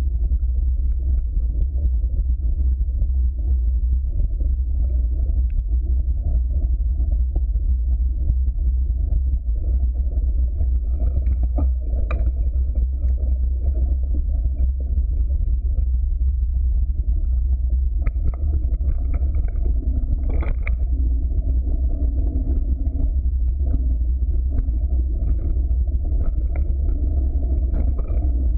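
Steady low rumble of a mountain bike descending a leaf-covered dirt trail: tyres rolling over the ground and wind buffeting the bike-mounted camera's microphone. Scattered short clicks and rattles from the bike over bumps.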